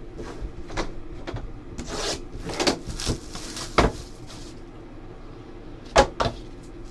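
Cardboard trading-card boxes and cards handled on a tabletop: rubbing and shuffling, with scattered light knocks and clicks and a sharper knock about six seconds in.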